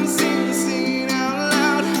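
Acoustic guitar strummed in a steady rhythm, with the song's melody carrying on without words, in the natural reverb of a large empty warehouse.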